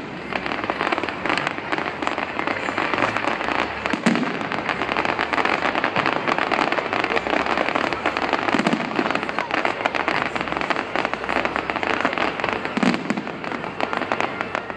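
Fireworks display: a dense, continuous crackling of many small bursts, with a deeper boom about every four to five seconds.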